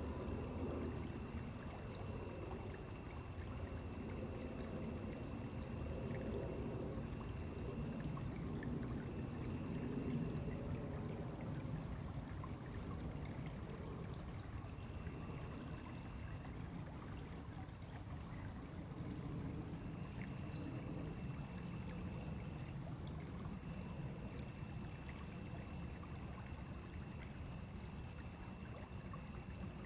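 Stream flowing steadily, water running and trickling. A high steady buzz sounds over it for the first eight seconds or so, then comes back about twenty seconds in.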